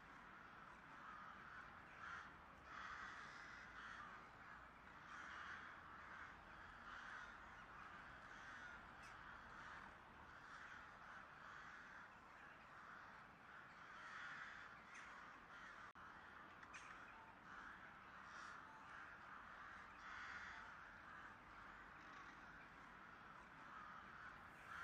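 Faint crows cawing again and again, a call every second or two.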